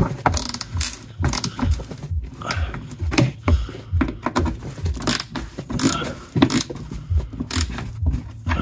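Hand ratchet and socket extension tightening bolts on the plastic wheel-arch liner, clicking in quick runs with scraping and knocks of the tool against the bolts and plastic.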